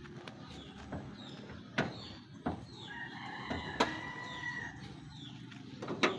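A rooster crowing, one long call about three seconds in, with smaller birds chirping and a few sharp clunks, the loudest about two seconds in and just before four seconds.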